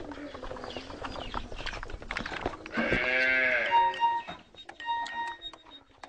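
A livestock animal gives one long bleat about three seconds in, its pitch rising and then falling, over a background of clattering noise. A few short electronic beeps follow it.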